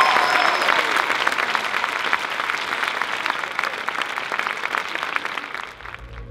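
Audience applauding, many hands clapping, slowly dying away near the end.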